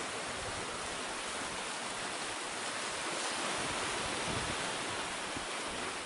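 The sea surging through a narrow gap in the cliffs, boiling and hissing as the foaming water rushes in over the rocks. It is a steady rush of surf that swells a little in the middle.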